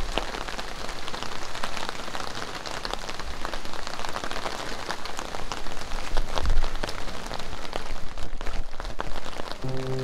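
Light rain falling steadily, many small drops pattering. Soft music with held notes comes in near the end.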